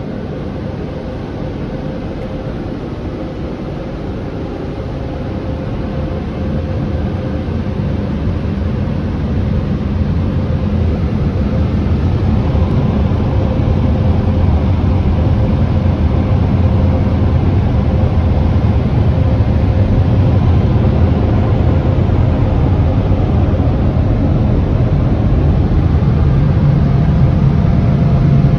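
Touch-free car wash dryer blowers running on the gantry above the car, a steady low rush of air that grows louder over the first ten seconds or so and then holds.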